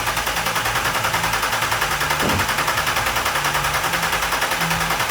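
Audi TT's 3.2-litre VR6 petrol engine idling just after starting, as a fast, even pulsing. It runs on a freshly replaced timing chain, with the former chain rattle gone.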